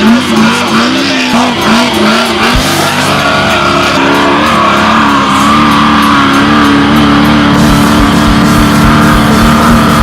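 Off-road race truck's engine at high revs, its pitch bouncing up and down about twice a second, then held steady from about four seconds in, with music underneath.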